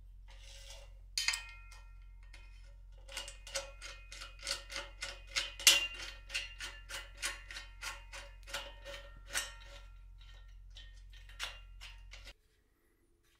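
Steel-on-steel clicking and ringing from a pulley carriage on a square steel upright as its pull-pin is fitted by hand: two sharp clicks about a second in, then a steady run of ringing clicks about three a second, and one last click near the end.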